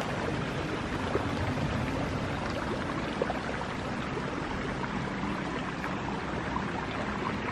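Stream water running steadily, an even rushing wash, with a couple of faint clicks about a second in and about three seconds in.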